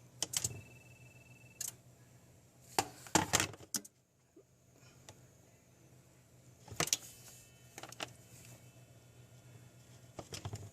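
Scattered clicks and clacks from dialing on a vintage business key telephone and from the relays of a Valcom intercom unit switching, with a brief steady high tone about half a second in. A steady low hum runs underneath.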